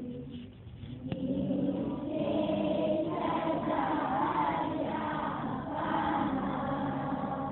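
A group of children singing a prayer together in chorus, with a short break in the singing about half a second in.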